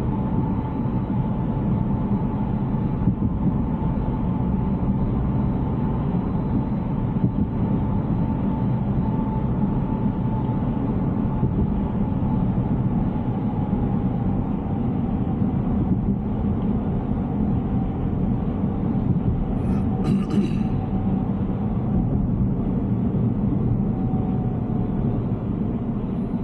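Tesla Cybertruck driving on a wet road: a steady rumble of tyre and road noise, with a faint whine that slowly drops in pitch.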